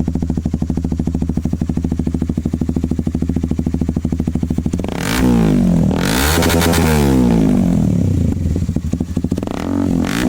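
Honda CBR150R's single-cylinder engine running through an M4 open-pipe exhaust canister, very loud. It idles with an even pulse, is revved up once about five seconds in and drops back to idle, then is blipped briefly near the end.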